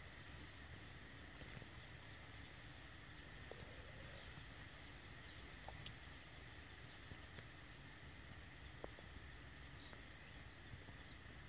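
Near silence: faint outdoor ambience, a steady low hiss with scattered small high chirps and a few soft ticks.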